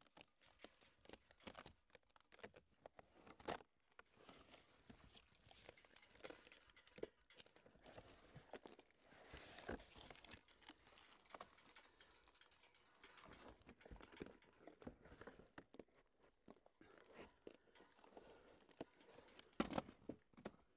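Faint, scattered crackling and tearing of summer birch bark being worked loose from the tree, with a sharper crack near the end.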